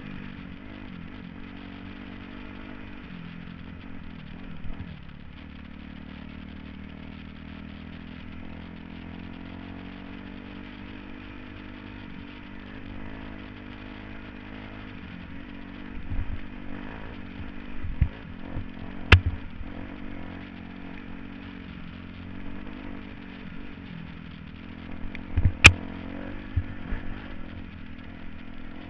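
2007 Kawasaki KX250F's four-stroke single-cylinder engine running fairly steadily on the trail, with a few sharp knocks about two-thirds of the way in and again near the end.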